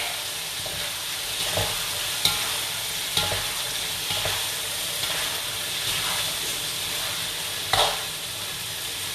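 Sambal telur (chilli sambal with eggs) sizzling steadily in a frying pan, with a few short knocks and scrapes of a utensil stirring it against the pan.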